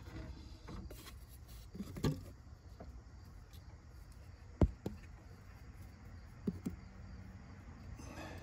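A few sharp clicks and knocks of tools being handled while fetching pliers, the loudest about four and a half seconds in, over a low steady rumble.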